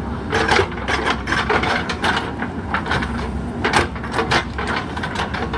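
JCB 3DX Super backhoe loader's diesel engine running steadily under load, with irregular scraping and crunching as the bucket works soil and stones.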